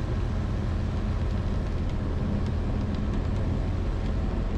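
The Zenith STOL CH 701's 100-hp Rotax 912ULS four-cylinder engine and propeller running steadily on landing approach, heard from inside the cockpit.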